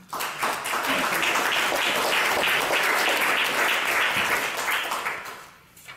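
Audience applauding, many hands clapping at once; it starts abruptly and dies away near the end.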